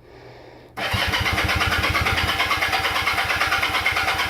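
1976 Kawasaki KZ400 parallel-twin cranking on its starter with the choke on, turning over in quick even pulses without catching. It starts about a second in. The engine has been sitting a long time and is not yet getting fuel.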